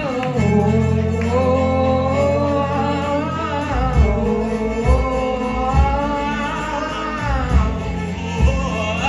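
A live rock band playing, with a long sung melody over bass guitar. About four seconds in, a beat of low drum thumps comes in, roughly one a second.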